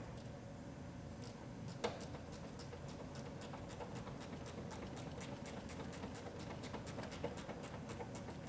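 Hand ratchet clicking faintly in a long run of short, evenly spaced clicks, about three a second, as a hard-to-reach fastener is slowly tightened. One click about two seconds in is a little louder.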